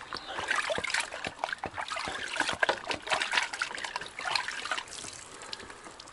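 Hands sloshing and splashing water in a galvanized metal bucket while washing pieces of raw meat, with water dripping from a piece lifted out near the end.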